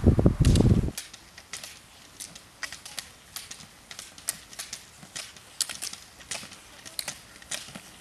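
Roller ski wheels rumbling on asphalt for about the first second, then sharp, irregular clicks of ski-pole tips striking the pavement, a few a second.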